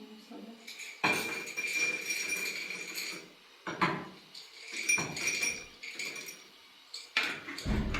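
Hard objects clattering and clinking in several bursts, some leaving a short ringing note.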